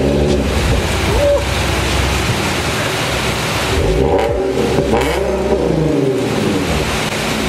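Infiniti Q50's 3.7-litre VQ37 V6 running through an ARK Grip cat-back exhaust with stock cats, revved in blips. The pitch climbs and falls back near the start and again about four and five seconds in.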